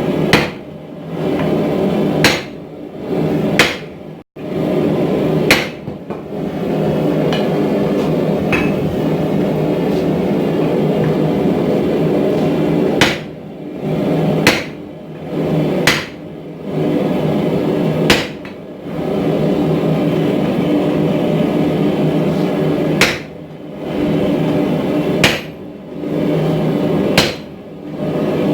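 Heavy hammer blows on a hot steel billet on an anvil, about a dozen sharp strikes at uneven intervals. A steady droning noise runs beneath them.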